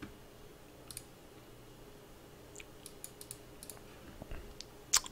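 Sparse clicks of a computer mouse and keyboard, several close together in the middle and a sharper, louder click near the end.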